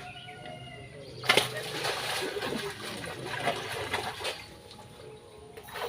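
Water splashing and sloshing, starting with a sharp splash about a second in and going on irregularly for about four seconds.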